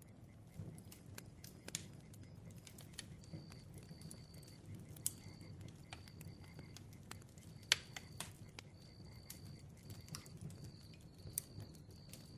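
Bonfire crackling faintly: irregular sharp pops and snaps over a low rumble of flames, with one louder pop about three-quarters of the way through. A high, thin chirp repeats about once a second throughout.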